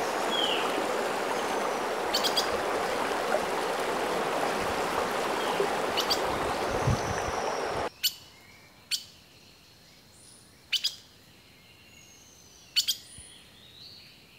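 Small creek running with birds chirping over it. About eight seconds in, the water sound cuts off suddenly, leaving only short, sharp bird chirps every second or two.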